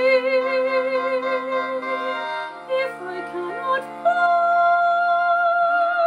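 Female soprano singing long held notes with a wide vibrato, stepping up to a higher sustained note about four seconds in, over sustained accompaniment chords.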